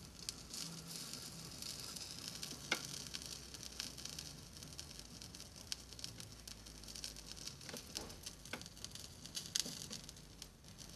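Solder melting under an electric soldering iron's tip, sizzling and crackling faintly as it is worked, with a few sharp clicks, the loudest about three seconds in and near the end.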